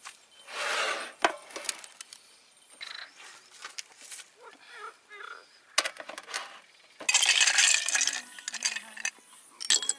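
Plates, bottles and glasses being set down on a folding table: scattered clinks and knocks. There is a brief noisy burst about half a second in, and a louder noisy stretch of a couple of seconds in the second half.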